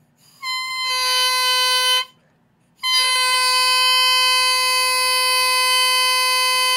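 Oboe reed crowing, blown on its own without the instrument: a short crow of about a second and a half, then a longer steady one from about three seconds in. The low crow is there but not real strong, a sign that more cane needs to come out of the heart.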